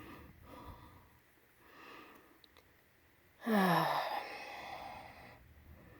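A person sighs heavily about three and a half seconds in: a loud breathy exhale with a voiced tone that falls in pitch, then tails off. Fainter breaths come before it.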